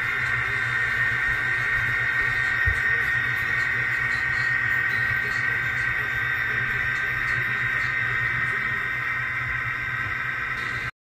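HO-scale model of a Pan Am Railways SD40-2 diesel locomotive running slowly along the track, giving a steady whine and hum that stays even throughout.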